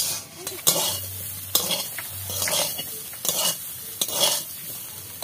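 Metal spatula scraping and stirring bottle gourd leaves in a metal kadai, in repeated strokes a little faster than one a second, over the sizzle of the greens frying in oil at the last stage of the stir-fry.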